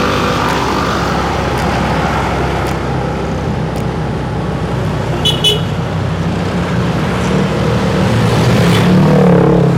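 Motorcycle engine running while riding in slow, heavy road traffic, with the surrounding traffic's steady noise. Two short horn beeps come about five seconds in, and an engine rises in pitch near the end.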